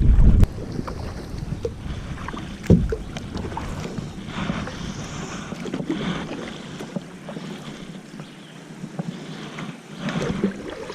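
Kayak moving on the water: paddle splashes and small knocks against the hull over a light watery hiss, with a sharper knock about three seconds in. A gust of wind hits the microphone at the very start.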